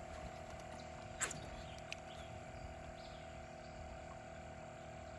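A small motor running with a steady hum, with a sharp knock about a second in and a fainter click a little later.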